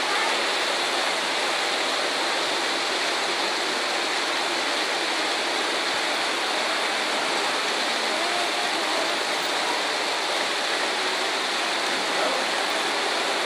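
Heavy rain on a glass roof: a steady, even hiss.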